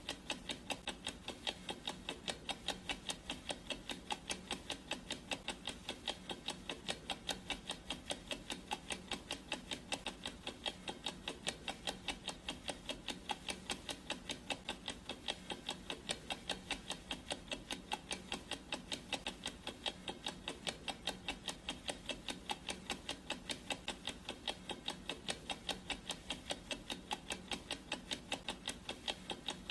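Clock ticking sound effect: a steady, even run of sharp ticks that keeps an unchanging pace.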